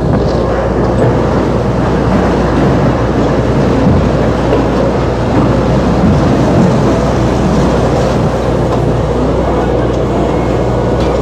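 Loud, steady machinery noise with a low hum underneath, from the unloading gear and engines aboard a tuna longline fishing boat.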